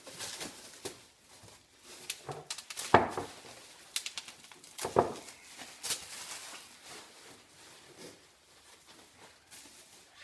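Machined metal parts and their packaging being handled: rustling, clicks and knocks, the loudest about three and five seconds in.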